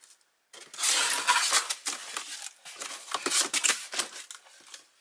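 Cardboard box flaps being pushed open and the packaging inside rustling and crinkling: a dense, scratchy rustle that starts about half a second in.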